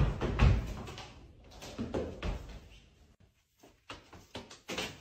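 Heavy thumps of someone running across a wooden floor, then knocks and clicks of a door being opened near the end.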